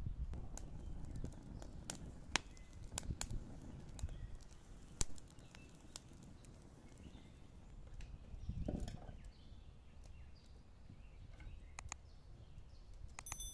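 Thin dry twigs snapping sharply as they are broken by hand and laid in a wood-fired clay stove, a run of snaps in the first five seconds, then a small kindling fire crackling with occasional pops.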